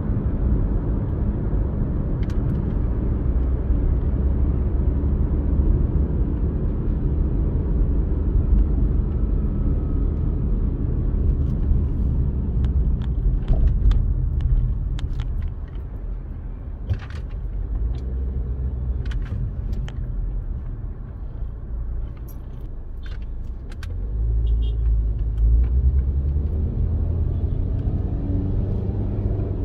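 Steady low rumble of a car's engine and tyres on the road, heard from inside the cabin. It eases off about halfway through as the car slows toward a red light, with a few faint clicks, and swells again near the end as the car pulls away.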